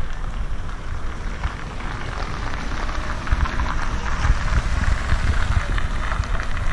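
Steady outdoor noise: a gusty low rumble of wind on the microphone under an even crackling hiss.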